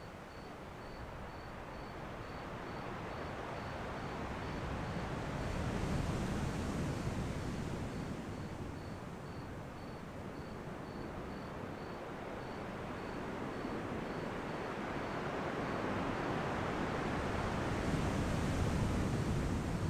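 Ocean waves washing ashore: a steady surf hiss that swells twice as waves come in, about six seconds in and again near the end. A faint high chirp repeats steadily, a few times a second, in the background.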